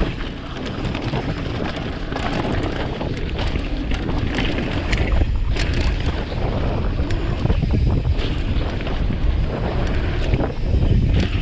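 Wind buffeting the microphone with a steady low rumble that swells and dips in gusts.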